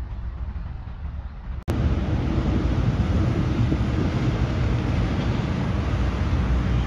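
Steady rumble of highway traffic, with trucks and cars passing. It breaks off briefly about a second and a half in and comes back louder and fuller.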